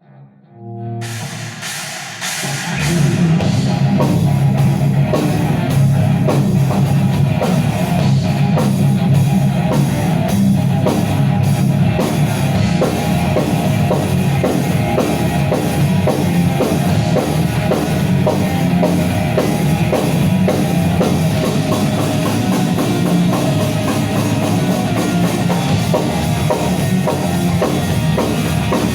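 A nu metal band playing an instrumental passage at rehearsal, with drum kit and electric guitar. It swells in over the first three seconds, then plays at full volume with steady drum hits.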